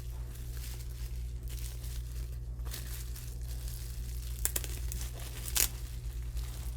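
Packing tape being pulled and torn off a wrapped kit part, the wrapping crinkling as it comes open, in a few short rasps, the loudest about four and a half and five and a half seconds in. A steady low hum runs underneath.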